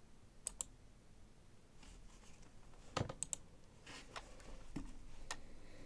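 Scattered clicks at a computer desk: a computer mouse clicking as a link is opened, with a pair of sharp clicks about half a second in, a duller knock about three seconds in, and a few more clicks after it.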